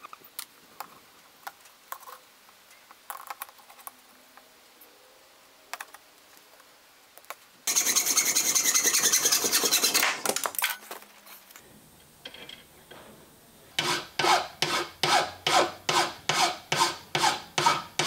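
A hacksaw cutting through a steel nut clamped in a metal vise, a loud steady rasp for about two and a half seconds midway. Near the end, a hand file strokes across the cut edge of the half nut, about three strokes a second. Before the sawing, a few faint clicks of small wooden pieces being handled.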